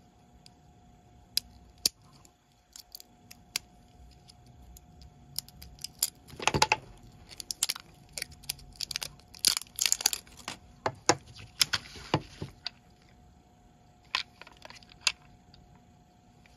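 Plastic wrapping crinkling and tearing as it is peeled off a 9-volt battery, in a string of short irregular crackles and clicks that are busiest in the middle and thin out near the end.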